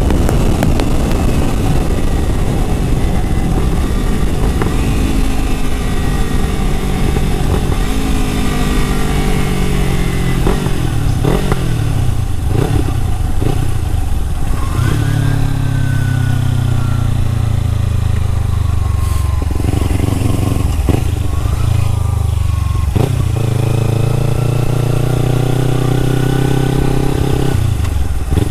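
Kawasaki sport bike's engine running under way, its pitch falling in several steps during the first half as the bike slows, then holding a steadier, stronger note through the second half. A few short clicks come around the middle.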